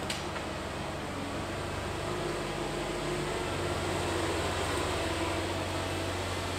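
Manitou telehandler's diesel engine running as the machine drives across soft, muddy ground past the camera, growing a little louder through the middle as it comes close. A brief click just at the start.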